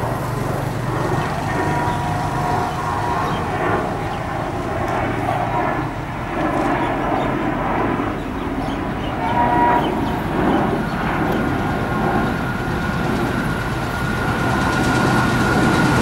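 WDP-1A diesel locomotive approaching at speed with a passenger train: a steady engine drone and rolling noise, getting louder near the end, with a short horn note a little past halfway.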